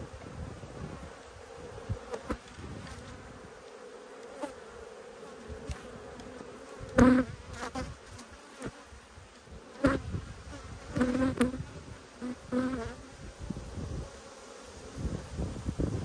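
Honeybees buzzing steadily over an open hive box, with several short knocks and scrapes of a metal hive tool prying the frames apart; the loudest come about seven and ten seconds in.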